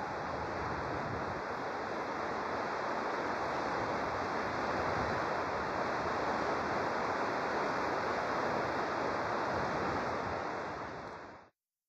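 Steady rushing noise with no tone or rhythm, which fades out and stops near the end.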